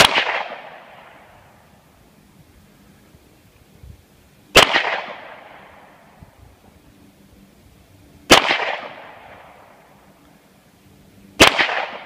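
Four single shots from a Hi-Point semi-automatic pistol, spaced three to four seconds apart, each sharp crack trailing off in a short echo.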